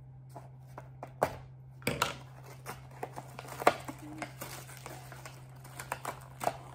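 Scissors snipping and hands working at a toy's cardboard-and-plastic blister pack: scattered clicks, snips and crinkles, the sharpest about 2 s in and again near the middle, over a steady low hum.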